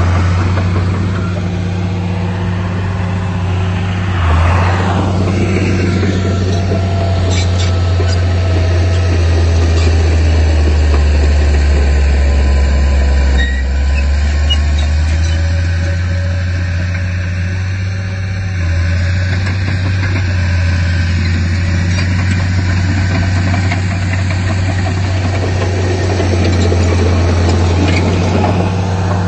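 Diesel engine of heavy earthmoving machinery running steadily with a loud, low drone that shifts slightly in pitch as the load changes.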